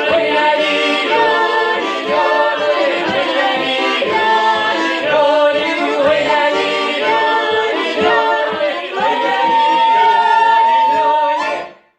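Russian folk song sung by a group of voices over a steady low rhythmic accompaniment. The song closes on a long held high note starting about three quarters of the way in, then stops abruptly just before the end.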